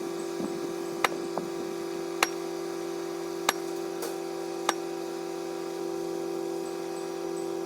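Steady mechanical hum with four sharp clicks spaced about a second apart.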